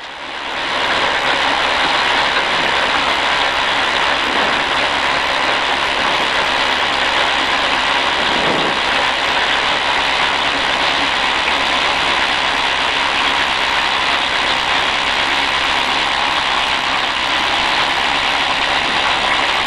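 Steady running noise inside a stock car rolling in neutral down pit road to park. It swells over the first second, then holds even.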